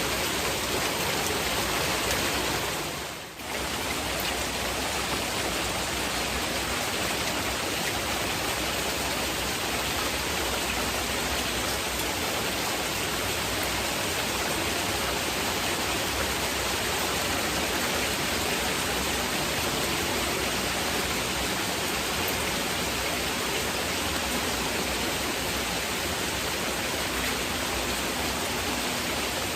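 Steady heavy rain, a dense even hiss blended with masking noise. About three seconds in, it briefly fades down and swells back up.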